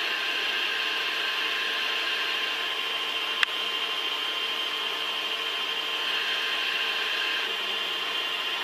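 Industrial machine tool running steadily, a hissing whine made of several steady tones, with one sharp click about three and a half seconds in.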